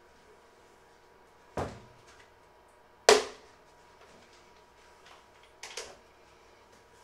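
Clunks of a plastic bucket and kitchen things being handled on a wooden worktop: a knock, then a sharp, louder clunk about three seconds in, and a quick double knock near the end.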